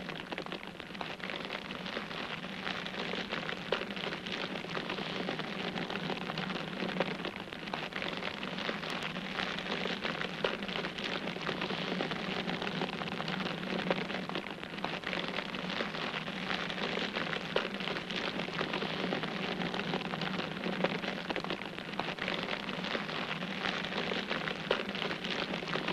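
TIG welding arc on stainless steel, a steady crackling hiss with a low hum underneath, as the bead is run along the joint.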